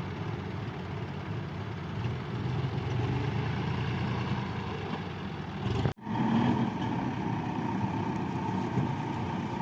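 JCB 3DX backhoe loader's diesel engine running steadily at work. The sound drops out for an instant about six seconds in and comes back a little louder, with a steady whine added.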